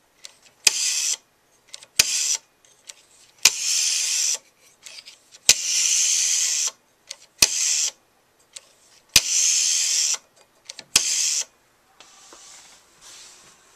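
Rotary dial of a vintage Automatic Electric pay phone being dialled seven times. Each digit is a sharp click followed by the whir of the dial spinning back: short for some digits and over a second for others.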